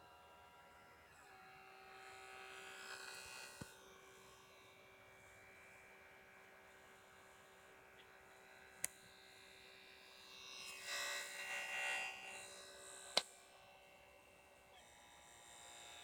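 PlayStation 4 Blu-ray disc drive spinning a game disc: a faint steady whine that steps up in pitch about a second in, three sharp clicks several seconds apart, and a louder rattling whir for a couple of seconds past the middle. It is the abnormal drive noise of a console fresh out of the box.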